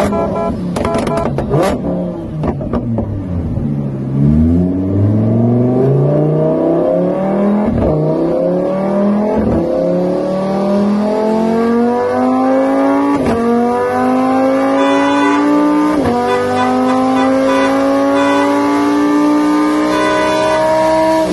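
Car engine accelerating hard through the gears, its pitch climbing and dropping briefly at each of about four shifts. A few sharp clicks come in the first two seconds.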